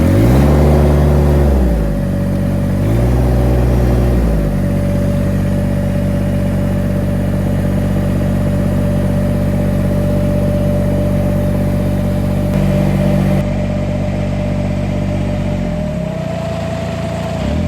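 Tractor engine just started for a test after a falling log damaged the tractor: it runs, revved up twice in the first few seconds, then idles steadily with a steady whine over it, dipping briefly near the end.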